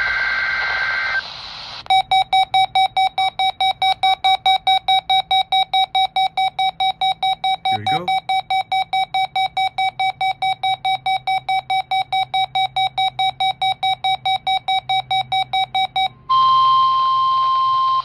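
NOAA weather radio alert sequence heard from a RadioShack 12-254 weather radio's small speaker. The tail of a SAME digital header burst plays first. The radio's built-in alert alarm then beeps rapidly, about three beeps a second, for roughly fourteen seconds. Near the end it gives way to the long, steady weather-radio attention tone that opens a weekly test.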